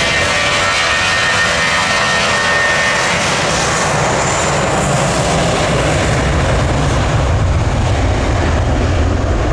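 Airbus A320 jet engines at takeoff thrust on the takeoff roll. A high whine early on gives way, about halfway through, to a deeper, louder roar as the airliner accelerates away down the runway.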